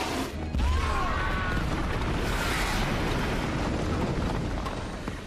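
Explosion: a sudden deep boom about half a second in, followed by a long rumble that slowly dies away. A few short high gliding squeals sound over the rumble early on.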